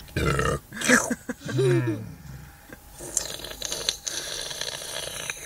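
Seagulls squawking repeatedly as they scramble for thrown chips, several separate calls in the first four seconds.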